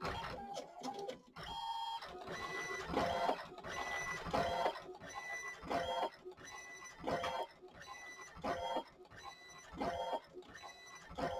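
ALPS MD-5500 thermal transfer printer running through a print pass: a mechanical cycle that repeats about every second and a half, after a more irregular run of clicks at the start.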